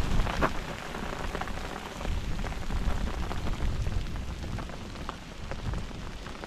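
A light shower of tiny precipitation pattering down, many small quick ticks over a low rumbling noise; the hiker cannot tell whether it is fine rain or tiny hail.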